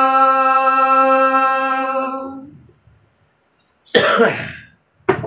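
A man singing Gojri bait holds one long note that fades out about two and a half seconds in. After a short pause there is a cough about four seconds in and another brief one just before the end.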